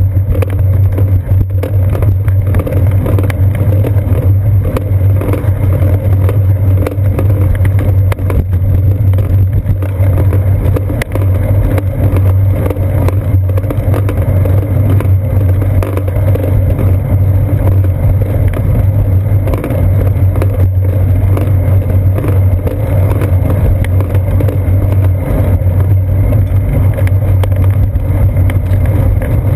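Loud, steady low rumble of a bicycle rolling along a concrete sidewalk, picked up through a GoPro camera housing clamped to the seat post, with scattered short knocks from bumps and joints in the pavement.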